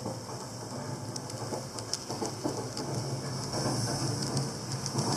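Recorded real-train running sound: a steady low rumble and hum with irregular sharp clicks of wheels passing over rail joints.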